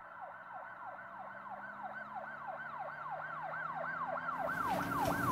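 Siren wailing in a fast yelp, its pitch rising and falling about four times a second and growing gradually louder.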